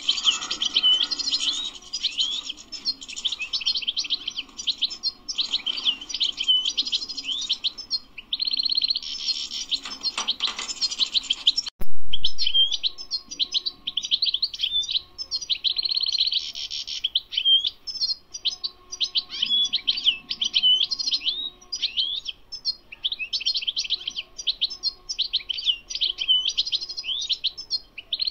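European goldfinch singing: rapid twittering phrases run together with only brief gaps, with a few longer held notes. A single sharp click about twelve seconds in.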